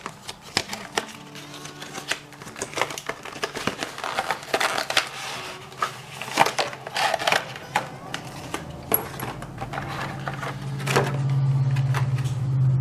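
Gift-box packaging being handled and opened: a run of irregular clicks, crinkles and snaps of plastic and cardboard. A steady low hum grows louder near the end.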